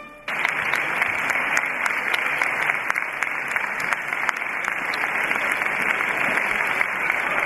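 A large concert-hall audience applauding, breaking out suddenly a moment in and keeping up a steady, dense clapping.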